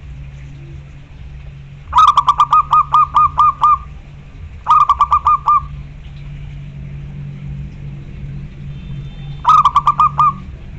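Zebra dove (perkutut) cooing in three bursts of quick, evenly spaced notes, about five notes a second. The first burst is the longest, with about nine notes; the other two, one soon after and one near the end, have about five each. A steady low hum runs underneath.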